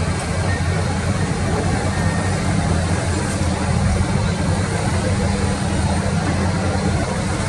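Diesel engines of Komatsu PC210 hydraulic excavators running steadily under working load as they dig, a constant low hum with no distinct bucket impacts.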